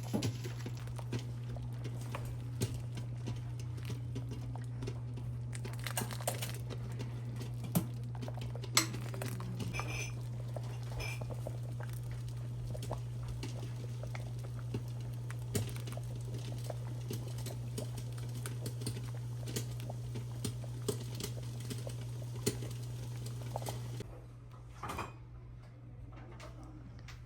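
Scattered clinks and taps of utensils against pots and dishes over a steady low hum, which drops away about three seconds before the end.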